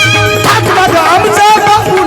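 Instrumental passage of a Marathi Bhimgeet played by a live band: a melody line bending up and down in pitch over a steady low drum beat.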